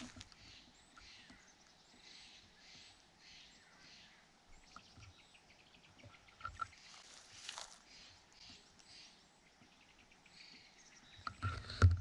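Faint rustling and small clicks of dry forest litter and gear being handled, with a cluster of heavy knocks against the gun-mounted camera near the end as the shotgun is moved.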